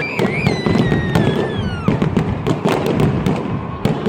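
Fireworks going off: a dense run of sharp cracks and bangs over a low rumble, with a long whistle falling in pitch over the first two seconds.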